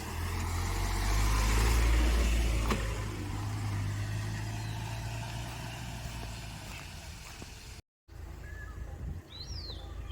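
A low rumble with a hiss over it swells for about two seconds and then eases off. After a brief dropout, a bird chirps a few times near the end.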